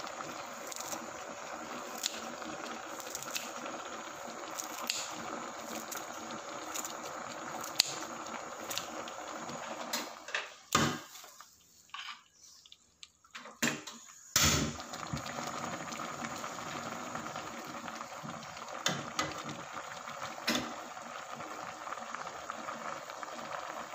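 Soup boiling hard in a metal pot: a steady bubbling hiss with scattered light clicks and taps. The bubbling drops away for a few seconds around the middle, then comes back with a sharp knock.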